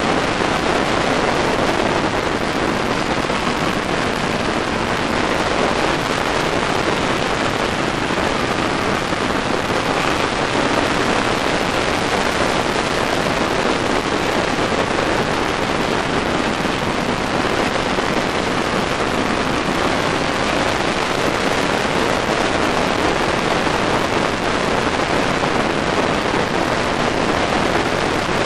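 Steady rushing wind noise buffeting the microphone of a motorcycle at speed, with road and engine noise blended into it.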